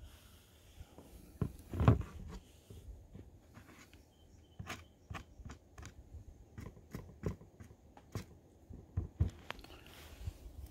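Scattered light clicks and knocks of hands handling a plastic gold pan, with one louder knock about two seconds in and a run of small sharp ticks through the second half.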